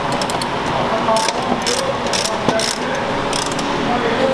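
Hand ratchet clicking in short, irregular bursts while fasteners along a car's rocker panel are worked, over a steady background hum.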